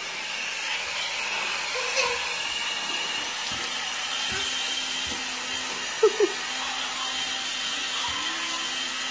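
Battery-powered toy monster truck's electric motor whirring steadily as it tows a baby across a hardwood floor by a string. About six seconds in there are two short squeaks.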